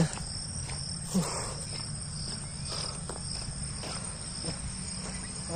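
Evening chorus of crickets in the park grass: a steady high-pitched trill at two pitches, over a low rumble.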